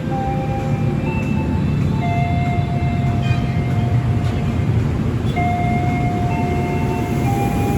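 Train running through the station with a steady low rumble. Over it sit held tones that jump from one pitch to another every second or so.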